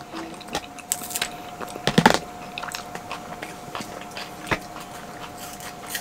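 Close-up eating sounds: chewing with scattered crisp clicks and crunches, the loudest about two seconds in, over a faint steady hum.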